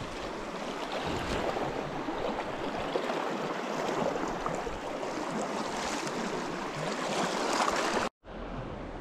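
River water flowing and rippling past the bank, a steady rush with no break. It cuts out suddenly for a moment near the end.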